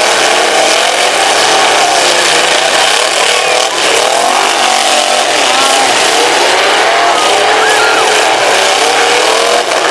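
Several demolition derby car engines revving at once, their pitches rising and falling over one another in a loud, continuous din.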